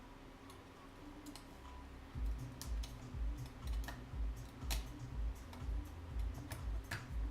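Small scattered clicks and ticks of a small tool and parts being worked inside an opened 2011 Mac Mini as a part is tucked into place. From about two seconds in, a regular low thumping runs underneath, about two to three beats a second.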